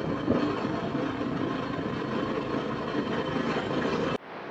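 Motorcycle engine running at riding speed with steady wind and road noise. It drops abruptly about four seconds in to a quieter, duller stretch of the same kind of noise.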